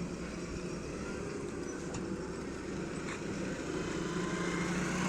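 Heavy vehicle's engine running steadily, a low drone that grows a little louder near the end.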